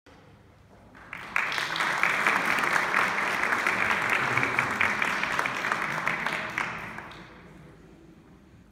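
Audience applauding, a dense patter of many hands that starts about a second in and dies away near the end.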